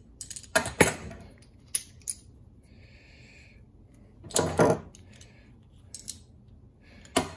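Metal hose pinch pliers being handled and squeezed: a few scattered sharp clicks and clinks of steel jaws and handles, with a brief faint scrape in the middle.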